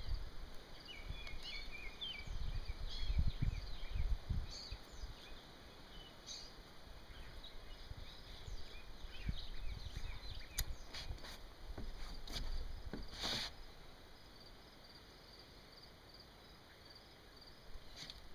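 Outdoor ambience of birds chirping with many short, high calls, over an uneven low rumble, with a short burst of hiss about thirteen seconds in.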